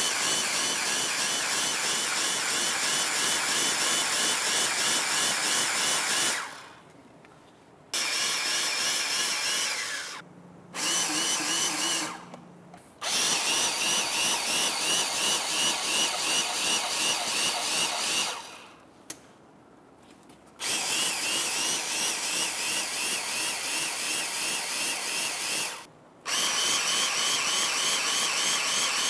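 Cordless battery-powered grease gun running in runs of a few seconds each, with a steady pulsing rhythm, as it pumps grease into a motor grader's pivot grease fittings. It stops and restarts about five times as the coupler is moved from one fitting to the next.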